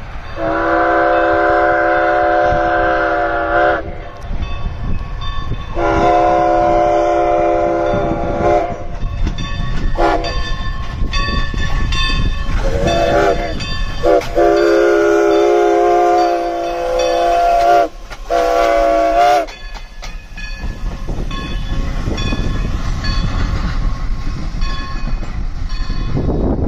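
Everett Railroad No. 11 steam locomotive's chime whistle sounding several notes at once, blown for a grade crossing: two long blasts, a short toot or two, another long blast and a short one. A bell rings steadily in the background from about a third of the way in. Near the end the rush of the locomotive's steam and running gear swells as it passes.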